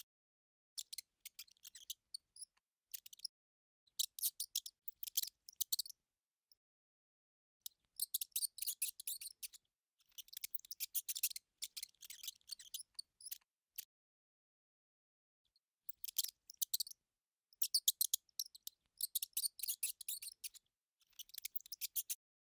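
Mouse squeaking sound effect: rapid, high-pitched chittering in clusters a second or two long, with pauses between.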